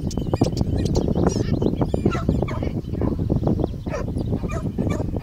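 Springer spaniel making short high-pitched excited calls while she is at the hidden person she has found, over a gusting rumble of wind on the microphone.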